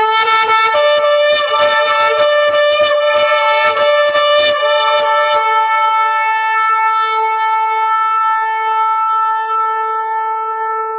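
Shofar blown in one long blast that starts abruptly: for about the first five seconds the note is broken by quick, uneven staccato pulses, then it settles into one steady held tone.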